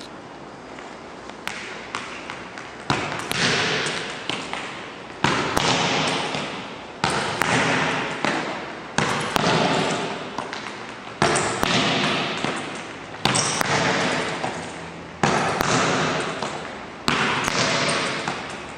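Soccer ball kicked against a gym wall about every two seconds, each hard strike echoing and dying away in the hall, with lighter touches of the foot in between as the ball is controlled and passed back.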